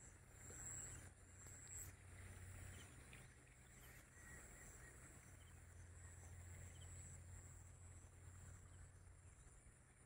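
Near silence: faint open-field ambience with a steady low hum, a thin high steady tone and a few faint short chirps.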